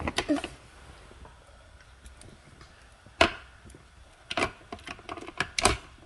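AA batteries being pressed into the plastic battery compartment of a toy Dyson vacuum: scattered light clicks and taps, the sharpest about three seconds in and a quick cluster in the last two seconds.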